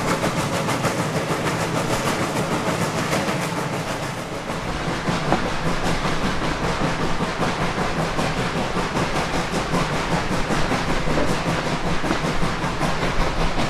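Reading & Northern 425, a 4-6-2 steam locomotive, running with its train: a fast, even beat of exhaust and rail noise over a steady din, turning deeper and heavier about four seconds in.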